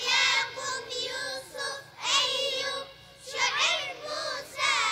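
A child's voice chanting in melodic phrases, each about half a second to a second long, with short breaks between them.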